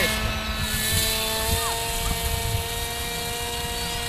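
Electric motor and propeller of a Bixler RC motor glider whining steadily, slowly fading as the plane climbs away, with wind rumbling on the microphone. Onlookers judge the plane short of motor power.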